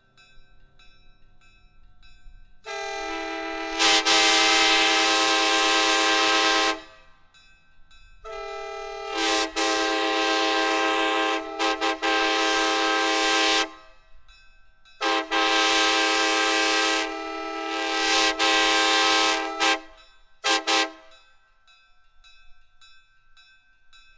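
A 1970s Nathan Airchime K5LA five-chime locomotive air horn blown in three long blasts of several seconds each. Each starts softer and swells to full volume about a second in, and two quick short toots follow the last one.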